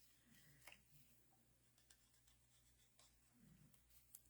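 Near silence: faint rustling and light ticks of paper being handled on a work table.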